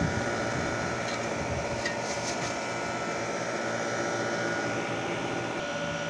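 Air-conditioner outdoor condensing unit running: a steady fan and compressor hum with a few constant tones, and a few faint ticks about two seconds in.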